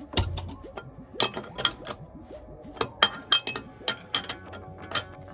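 Sharp, irregular metal clinks, about a dozen, as a steel spanner is repositioned and pulled round on the 27 mm nut of a heavy-duty bush press pull-sleeve kit. The kit is drawing a rear axle bush into the axle, and it sounds like it is actually doing something.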